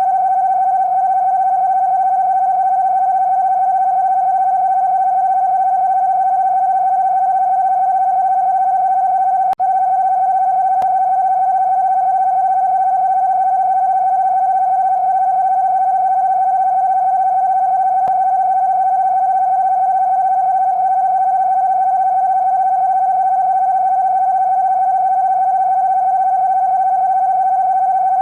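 Emergency Alert System-style alarm tone: a loud, steady electronic tone that holds one pitch without change. It cuts out for an instant about ten seconds in.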